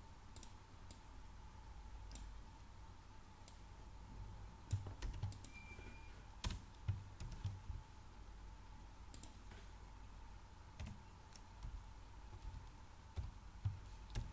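Computer keyboard being typed on: sparse key clicks in short, irregular clusters, over a faint steady low hum.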